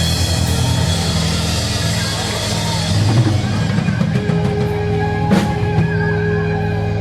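Rock-style band music with a drum kit, over sustained bass notes and held chords. One sharp, loud hit rings out about five seconds in.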